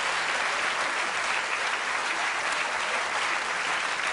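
A theatre audience applauding steadily, many hands clapping at once.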